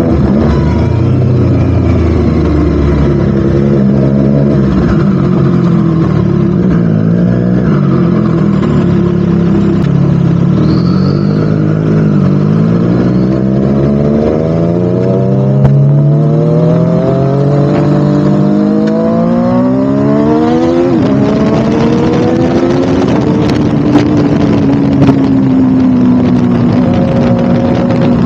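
Triumph Street Triple RS's inline three-cylinder engine heard through a Spark slip-on exhaust under way. Its pitch wavers with the throttle, then climbs steadily in a long pull through the middle. It drops sharply about three-quarters through and then runs on with a slowly falling pitch.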